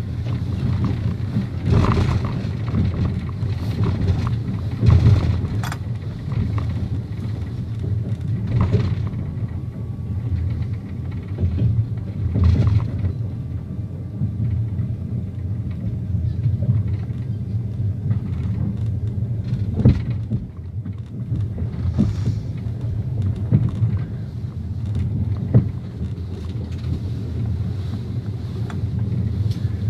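A moving vehicle's steady low rumble, with scattered knocks and clanks every few seconds.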